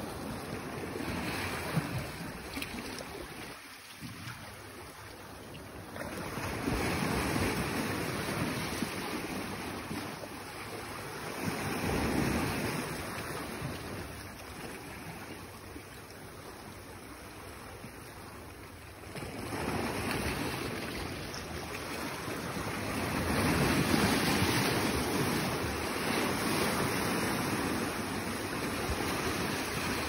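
Sea surf washing in and sloshing around a rocky outcrop, a steady rush that swells and eases with each surge; the biggest surges come about a quarter of the way in, near the middle, and twice in the last third.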